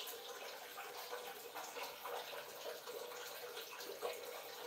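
Water running steadily in a small tiled bathroom, with light splashing.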